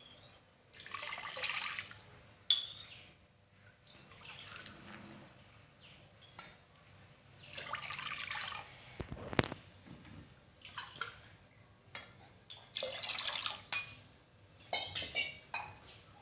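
Water poured into an aluminium pressure cooker in several short splashes, with a sharp metal clink about nine seconds in.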